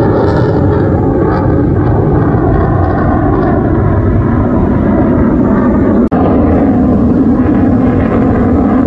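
Fighter jet engine noise from aircraft flying past, loud and continuous. About six seconds in there is a sudden brief dropout at an edit, and after it a steadier low hum stands out in the jet noise.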